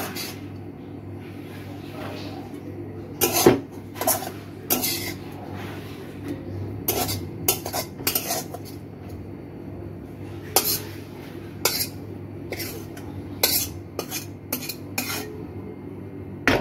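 Metal spatula scraping and tapping against a metal kadai and a steel bowl while cooked greens are scooped out, giving a long run of sharp, irregular clinks, the loudest about three and a half seconds in, over a steady low hum.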